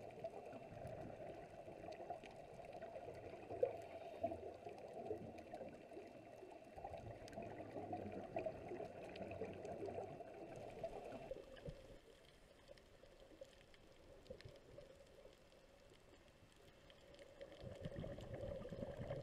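Underwater ambience: a steady gurgling water noise that drops quieter about twelve seconds in and comes back up near the end.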